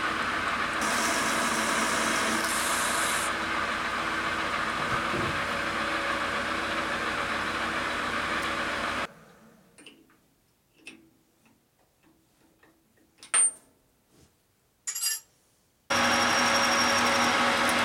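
Enco metal lathe running while a cutting tool turns an aluminum pulley held in a four-jaw chuck: a steady machining noise, with a high hiss between about one and three seconds in. About nine seconds in it cuts off to near silence broken by a few sharp clicks. About two seconds before the end the lathe runs again, a twist drill boring into the spinning aluminum.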